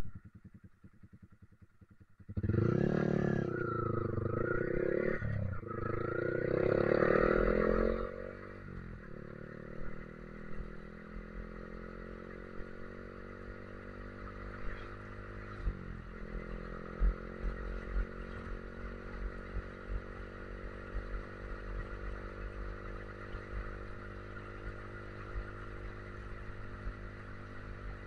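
Yamaha R15 V3's 155 cc single-cylinder engine, heard from the rider's seat: it comes in loud about two seconds in, revving as the bike pulls away, then settles after about eight seconds into a steady cruise. A brief dip in the engine note near sixteen seconds marks a gear change, and wind buffets the microphone throughout the ride.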